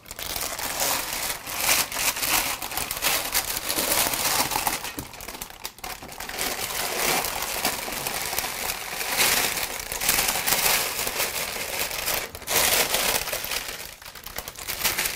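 Parchment paper crinkling and rustling as it is lifted and folded into a chute, with loose baked granola sliding off it into a stainless steel mixing bowl. The crackling goes on almost without a break, dipping briefly a few times.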